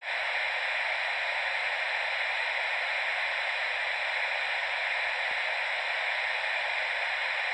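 Steady hiss of analogue television static ("snow"), even and unchanging.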